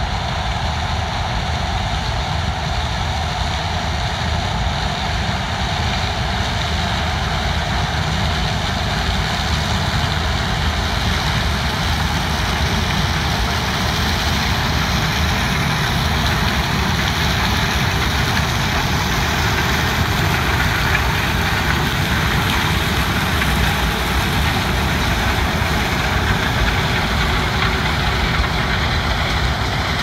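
Claas Lexion 770 tracked combine harvester running steadily while cutting and threshing maize with its corn header. Its engine and machinery make a continuous loud noise.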